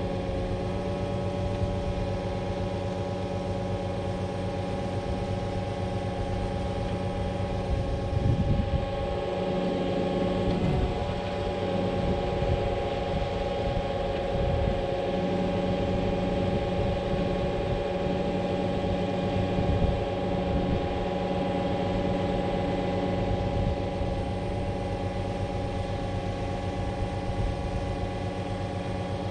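Concrete pump truck's diesel engine running steadily at a constant speed, with a few brief louder rough surges about a third of the way in.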